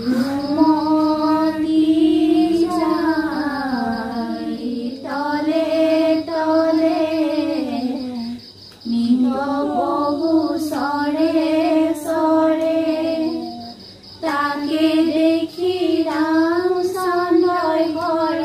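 Female voices and a child singing a devotional prayer song together in one melody line, in long held phrases with short breaks between them.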